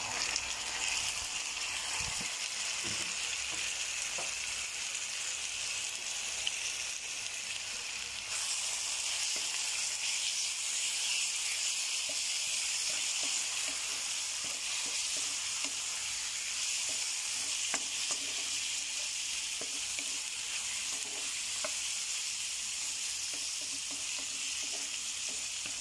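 Marinated chicken pieces sizzling in hot oil with onions and garlic, stirred in the pan with a spatula. The steady sizzle grows a little louder about a third of the way in.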